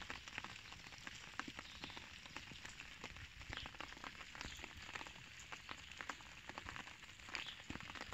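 Cat eating scraps off the ground: faint, irregular crackly clicks of chewing and of the scraps and dry leaves shifting under its mouth and paws.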